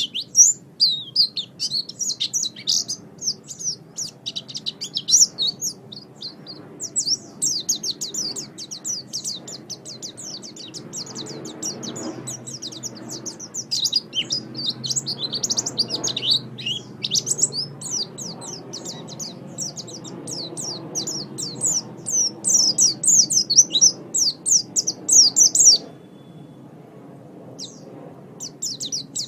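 White-eye (pleci) singing a fast, high-pitched twittering song of rapid chirps and trills. The song breaks off for a couple of seconds near the end, then starts again.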